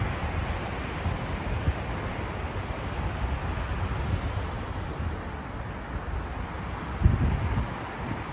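Strong wind buffeting the microphone: a gusty low rumble over a steady hiss, with a louder gust about seven seconds in.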